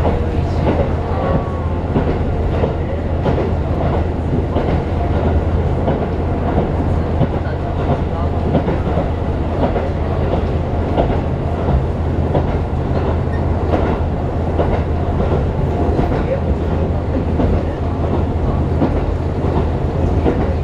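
Diesel local train running at speed, heard from inside the passenger cabin: a steady low engine drone under the rumble and irregular clatter of the wheels on the rails.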